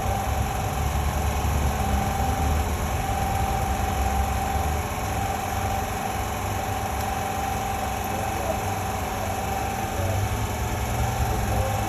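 Steady machine hum with a constant high tone and a low rumble underneath.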